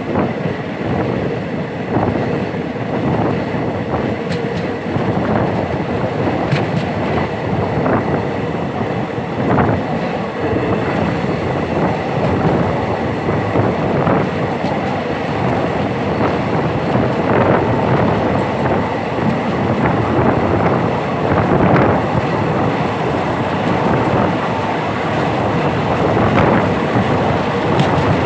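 Indian Railways train running on the track: a steady rumble, with the wheels clicking over the rail joints every second or two.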